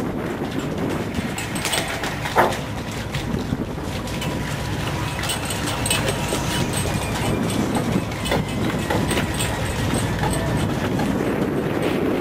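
Fishing boat running steadily at sea, with wind buffeting the microphone, a faint thin whine and light ticking, and one sharp knock about two and a half seconds in.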